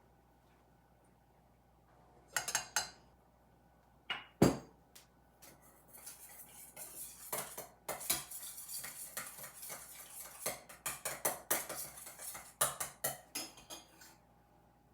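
Cutlery clinking and scraping against a bowl in quick, uneven strokes. Before that come a few separate clinks and one sharp knock.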